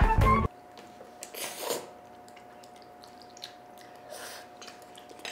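Background music cuts off about half a second in. Then a quiet stretch with a few faint slurps and chewing sounds from a child eating spicy instant noodles off chopsticks, over a faint steady tone.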